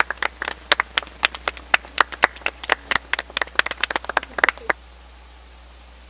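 A small group clapping by hand: quick, uneven claps that stop abruptly about three-quarters of the way through, leaving a steady hiss.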